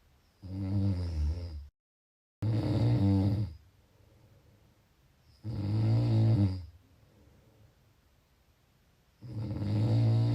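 A person snoring: four loud snores, each a little over a second long, coming about every three to four seconds with quiet gaps between. The first snore is cut off by a brief dead-silent dropout in the audio.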